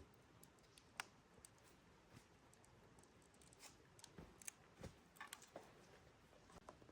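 Near silence with scattered faint clicks and light taps, most of them in the second half.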